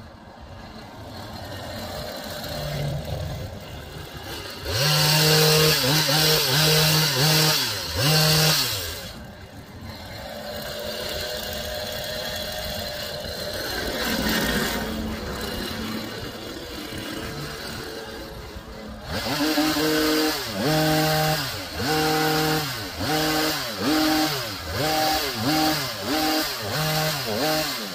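Gas hedge trimmer engine revving under throttle while cutting a hedge. It drops back toward idle for a quieter stretch in the middle, then revs and falls back about once a second near the end.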